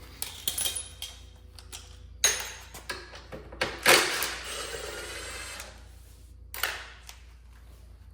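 Metal hand tools clinking and knocking, a few separate sharp clicks with the loudest just before four seconds in, followed by a brief rattle.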